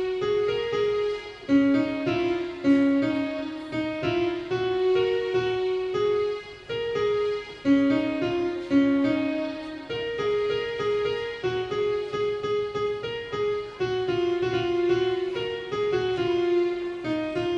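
Electronic keyboard played solo, a melody of held piano-like notes moving up and down.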